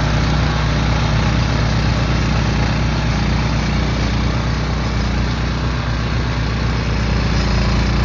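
Small gas engine of a walk-behind trencher running steadily under load as its blade cuts a shallow trench through turf and soil.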